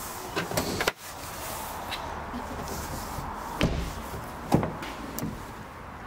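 Several short knocks and thumps over a steady background hiss, the loudest about four and a half seconds in, with a sudden break in the sound about a second in.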